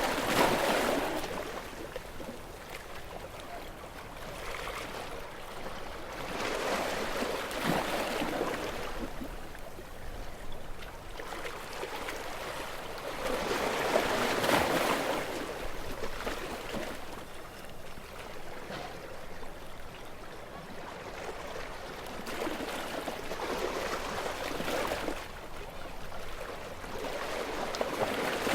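Gentle waves washing onto a beach: about five soft swells of surf that each rise and die away, several seconds apart.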